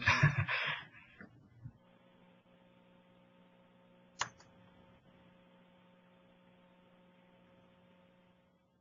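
Faint, steady electrical mains hum on the audio line, with one sharp click about four seconds in.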